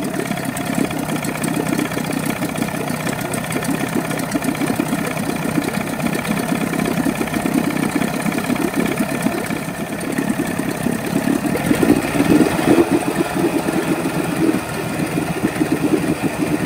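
A 1984 Johnson 25 HP two-stroke outboard runs steadily in a water test barrel. It swells briefly louder about twelve seconds in. The rebuilt fuel pump is now feeding it fuel without air, since the fuel hose was put straight into the tank.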